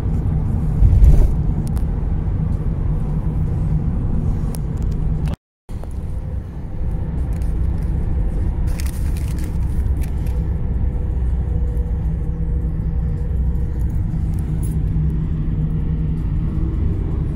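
Car cabin noise while driving: a steady low rumble of engine and tyres on the road, with one loud thump about a second in and a brief cut to silence about five seconds in.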